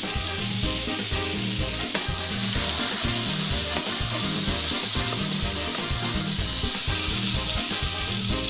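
Butter and vegetable oil sizzling as they fry in a large stainless-steel pot, stirred with a slotted spoon. A low steady beat runs underneath.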